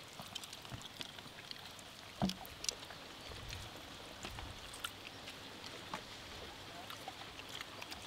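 Faint sounds of people eating chicken with their hands: scattered small clicks and a soft knock about two seconds in, over a quiet background hiss.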